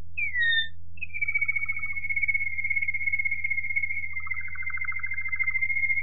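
Waterslager (Malinois) song canary singing: a short falling whistle, then from about a second in a long, steady hollow whistle held near one pitch, with a softer rapid trill running underneath twice.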